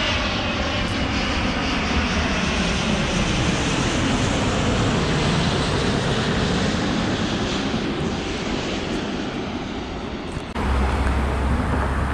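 Airliner's jet engines roaring as it flies low past near the airport runway, the pitch sliding down as it passes. About ten seconds in the sound cuts abruptly to a steadier low rumble.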